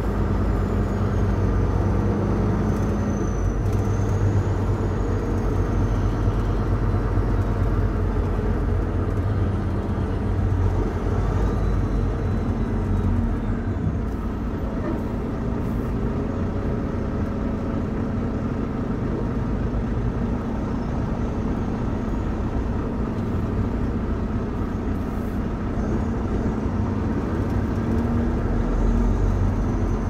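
Semi-truck's diesel engine running steadily while driving at low speed, its low hum shifting slightly in pitch as it goes.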